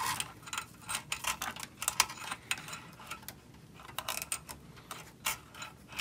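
Irregular light clicks, taps and rustling of a braided U.2 cable and its connector being pulled through a hole in a sheet-metal PC case, knocking against the metal chassis.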